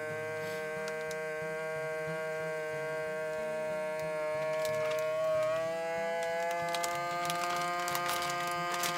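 Ambiano vacuum sealer's pump running steadily as it draws the air out of a bag of ribs. Its pitch steps up a little about five and a half seconds in, with crackling of the plastic bag through the second half.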